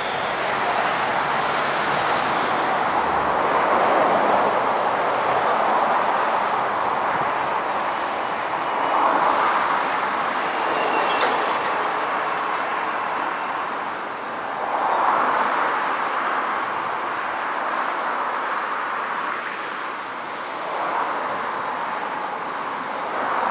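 Six-car JR 115-series electric train pulling away from the station, a steady rumble that swells and eases every few seconds.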